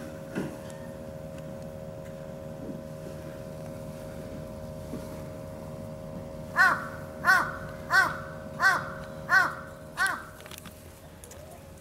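A crow cawing, six harsh calls in an even series about two-thirds of a second apart in the second half, over a steady hum.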